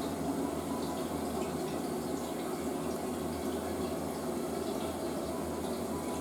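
Western-style toilet refilling after a flush: water running steadily into the tank and bowl.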